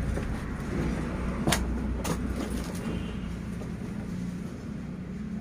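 Steady low hum of background traffic, with two sharp clicks about one and a half and two seconds in.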